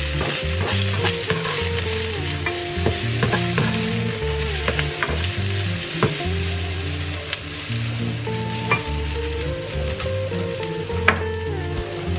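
Sliced red onion sizzling in oil in a non-stick frying pan, with the clicks and scrapes of a plastic slotted spatula stirring it against the pan. Background music plays underneath.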